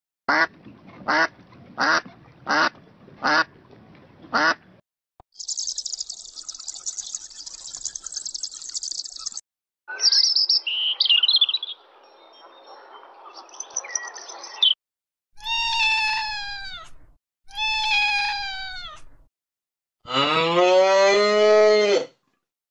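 A string of different animal calls: six short, evenly spaced quack-like bird calls, then a steady high hiss for a few seconds, a mixed stretch of noises, two long calls that fall in pitch, and a cow mooing near the end.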